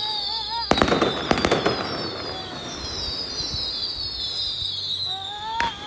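Fireworks display: sharp bangs and crackling reports, a cluster about a second in and another near the end, over high whistles that fall in pitch again and again.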